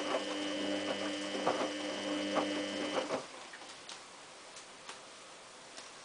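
Samsung WF8804RP front-loading washing machine tumbling its wash: a steady motor whine with soft knocks of laundry falling in the drum. The drum stops about three seconds in, leaving only a few faint clicks.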